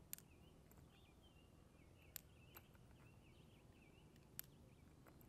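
Near silence with faint birdsong, broken by four small clicks spread over a few seconds: .38 Special cartridges being loaded one by one into the cylinder of a Taurus 856 revolver.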